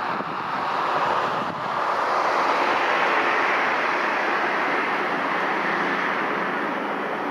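Jet engine noise from a SriLankan Airlines Airbus A330-300 with Rolls-Royce Trent 700 engines: a steady rushing noise that swells slightly a couple of seconds in, then slowly eases.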